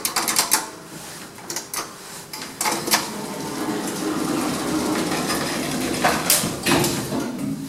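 Lift doors sliding shut with clicks and rattles from the door's spring mechanism, then a steady hum as the lift car travels, with more clunks near the end.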